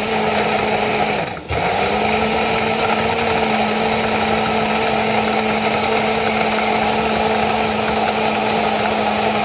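Countertop blender motor running steadily, blending a smoothie. About a second and a half in it cuts out briefly, then spins back up to speed.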